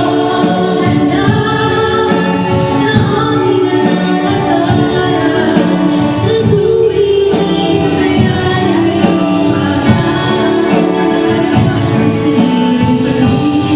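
Two women singing a gospel song together into microphones over accompanying music, amplified through a sound system.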